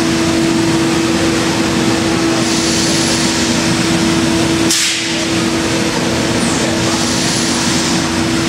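CNC router spindle running steadily with a strong, even whine while its cutter machines a wooden block, the higher cutting hiss swelling every few seconds as the tool sweeps through the wood. A short sharp click about halfway through.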